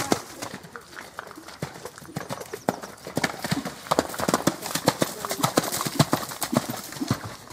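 Horse's hooves cantering through waterlogged, muddy arena footing: a quick, uneven run of thuds and splashes.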